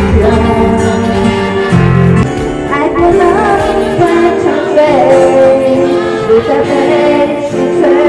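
Pop song playing as background music, with held sung or melodic notes over sustained chords.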